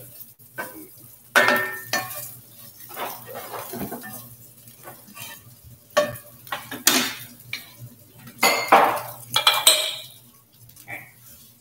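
Wooden spatula scraping and knocking against a cast iron skillet in irregular strokes, stirring sausage as it browns.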